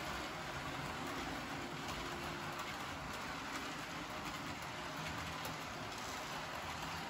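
Roco H0 class 35 model steam locomotive and its coaches running on the track: a steady rolling rumble of metal wheels on the rails with a faint motor hum and occasional faint clicks.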